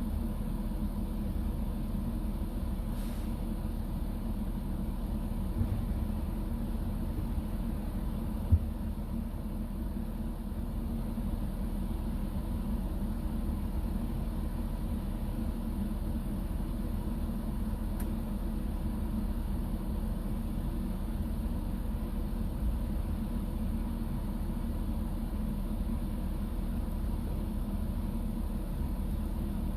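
Steady low rumble of a running vehicle engine with a faint steady hum, and one short knock about eight and a half seconds in.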